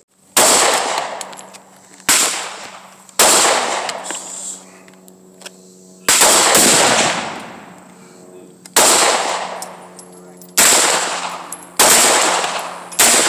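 Sig Sauer MPX 9mm carbine pistol fired semi-automatically, about eight single shots spaced one to three seconds apart. Each shot is followed by an echo that dies away over a second or so.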